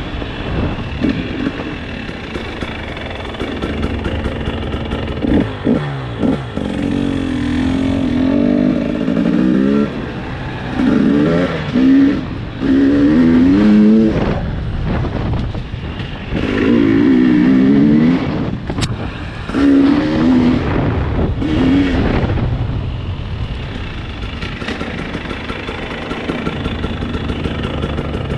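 Motorcycle engine being ridden, revving up and falling back in a string of rising bursts through the middle, then settling to a steadier low run near the end. A single sharp click cuts through about two-thirds of the way in.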